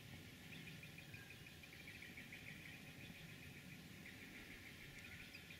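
Near silence: faint outdoor ambience with soft, high chirps repeating in short runs.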